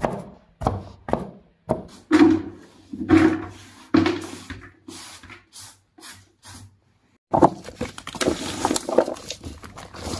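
Cleaver chopping garlic cloves on a cutting board, a string of uneven knocks about one a second. After a short break, a dense wet rustling as a gloved hand rubs the chopped garlic and onion into a cleaned fish in a plastic basin.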